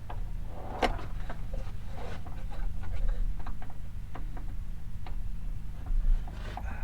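Irregular small metallic clicks and taps of a wrench working a stubborn nut off a hood latch bolt, the last threads corroded so the nut will not spin off easily, over a steady low hum.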